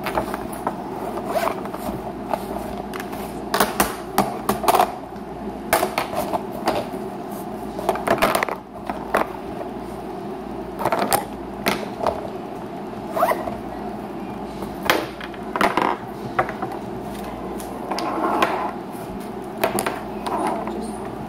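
Makeup being handled in and out of a makeup bag: irregular clicks, taps and short scrapes of small cases and containers, with a zip-like rasp among them.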